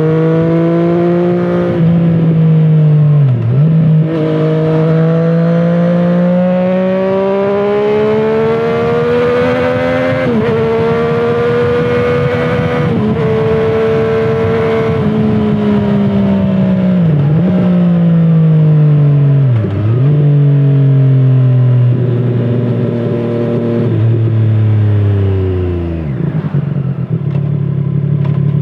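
A 2017 Triumph Street Triple 765RS's inline three-cylinder engine through a Scorpion Serket Taper carbon slip-on exhaust, under way: its pitch climbs hard through several quick gear changes, then falls away steadily with further brief shifts as the bike slows, dropping low and quieter near the end. A steady rush of wind and road noise runs underneath.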